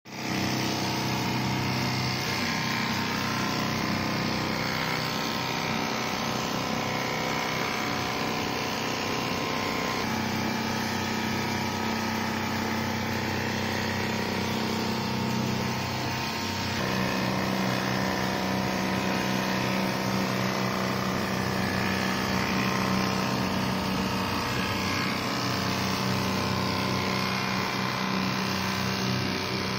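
Richpeace computerized long-frame sewing machine stitching continuously through upholstery fabric and padding, its sewing head and drive motors running with a steady mechanical hum. The pitch of the hum changes about a third of the way in and again a little past the middle.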